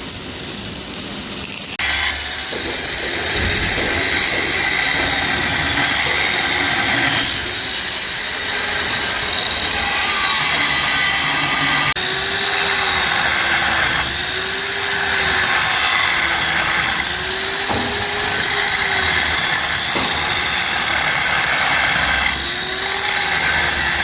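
Handheld power tool running on steel parts of an excavator bucket quick coupler, starting about two seconds in. Its motor pitch dips and rises as the load on it changes.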